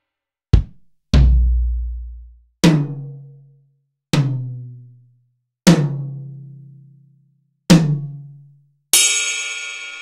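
Separate drum-kit one-shot samples played one after another with gaps between. First a short, sharp hit, then a deep booming bass-drum hit. Four drum hits follow, each with a ringing low tone, and a bright cymbal crash near the end rings on past the last second.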